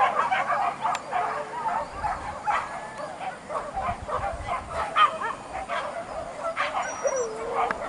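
A pack of boar-hunting dogs yelping and barking over one another, with many short overlapping yips and whining calls that go on without a break.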